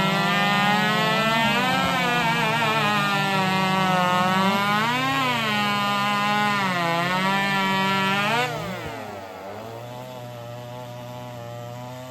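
Several 4-cube class racing chainsaws, high-revving two-strokes, run flat out through the log, their pitch sagging and recovering as the chains bite the wood. About eight and a half seconds in, the cutting ends and the saws drop back to a quieter, steadier running note.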